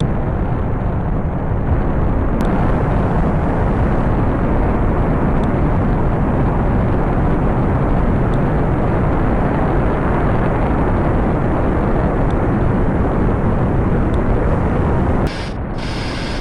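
Rocket engines thundering through a launch: a loud, steady, dense roar heavy in the low end. It begins abruptly and drops to a somewhat lower level near the end.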